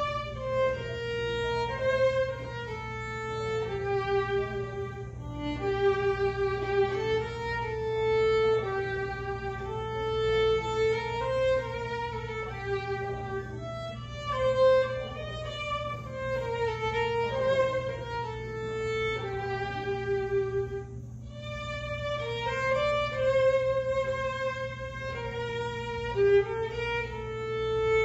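Solo violin playing a slow melody in held notes, over a faint steady hum.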